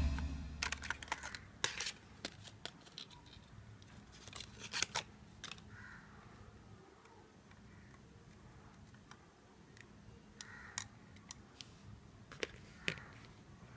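Faint handling sounds from unboxing a pair of fashion glasses: scattered small clicks and taps, with a few soft rustles of packaging about four to five seconds in.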